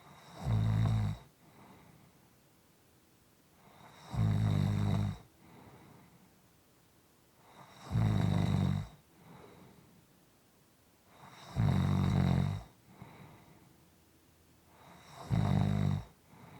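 Snoring in a slow, regular rhythm: five loud snores about every three and a half to four seconds, each followed by a soft breath out.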